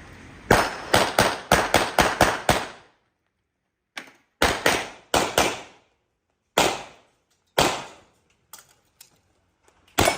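Handgun fired in rapid strings: about eight quick shots, a pause, then four or five more, then single shots spaced about a second apart, typical of a shooter running a practical-shooting stage.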